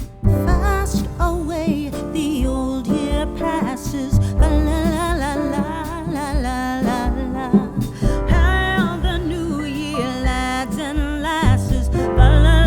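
Music with a singing voice over a steady bass and backing instruments.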